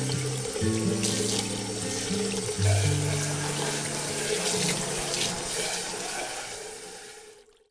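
Kitchen faucet running into a stainless steel sink while a copper saucepan is rinsed under the stream, over background music with held low notes. Both fade out near the end.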